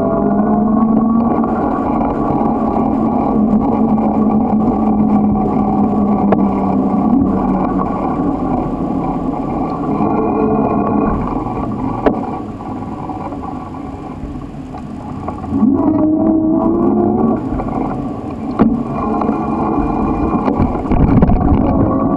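Continuous ride noise: a steady hum and rumble whose pitch wavers and rises in places, with two sharp knocks partway through.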